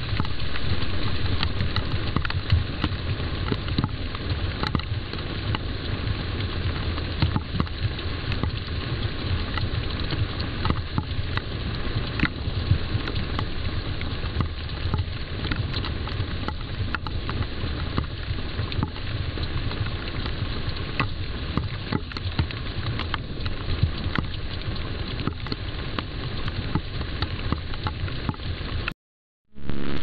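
Steady crackling hiss with a low hum and scattered faint clicks, the self-noise of a trail camera's built-in microphone. It cuts to silence briefly about a second before the end, then starts again.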